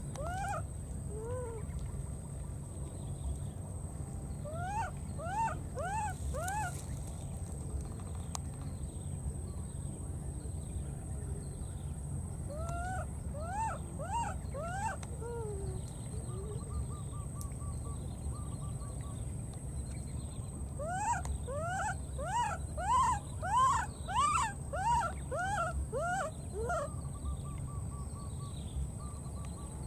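Baby monkey crying while it searches for its companion: short, high calls that each rise and fall, coming in bouts of a few at a time, with the longest and loudest bout about two-thirds of the way through. A steady low rumble runs underneath.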